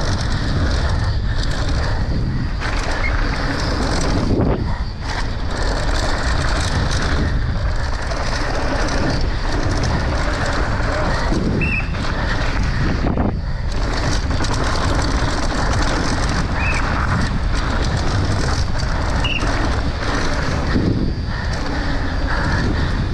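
Mountain bike ridden fast down a hard-packed dirt downhill trail: a steady rush of wind over the on-bike camera's microphone mixed with tyre roar and frequent knocks and rattles from the bike over rough ground, with a few short high chirps.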